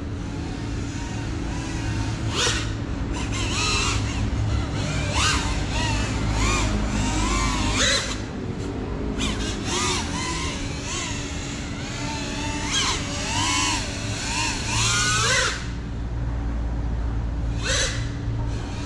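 GEPRC CineLog 35 cinewhoop's brushless motors and ducted props whining, the pitch repeatedly swooping up and down as the throttle is worked, over a steady low rumble.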